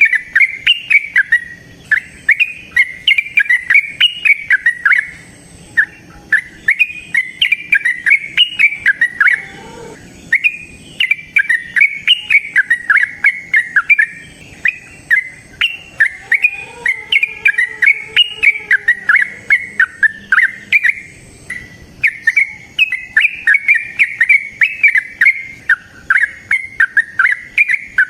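Yellow-vented bulbul (trucukan) singing its long, rapid bubbly phrases over and over, each a few seconds long with short pauses between, the kind of song used as a lure to get other bulbuls singing.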